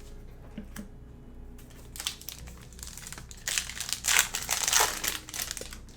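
The plastic wrapper of a football trading-card pack crinkling loudly as it is torn open and handled, in a run of crackles that grows loudest about four seconds in.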